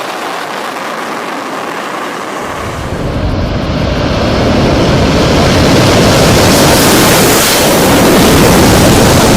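Fighter jet engine noise, a loud rushing roar that swells in level a few seconds in as the jet draws closer.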